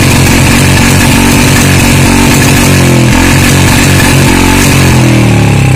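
Royal Enfield Bullet 350 single-cylinder engine running loud at raised revs through its silencer, which has milk poured into it. The revs fall away over the last couple of seconds.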